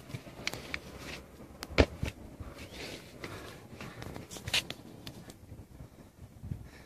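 Footsteps and scuffs on dry dirt with scattered sharp knocks, the loudest just under two seconds in.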